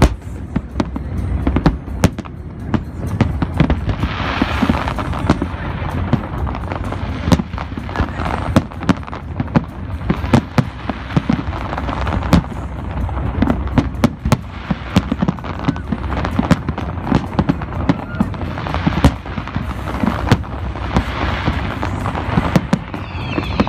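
Fireworks display: a continuous string of booms and bangs from aerial shells bursting, with bursts of crackling about four seconds in and again around twenty seconds in.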